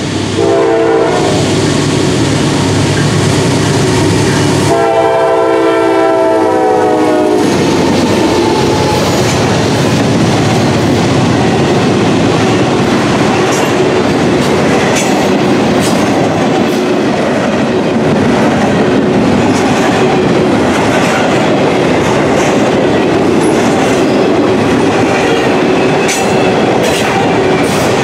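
Norfolk Southern GE Dash 9-40CW diesel locomotive sounding its horn: a brief blast at the start and a longer one of about three seconds, some five seconds in. Then the engine passes, and a loud, steady rumble with the clickety-clack of double-stack container well cars rolling by follows.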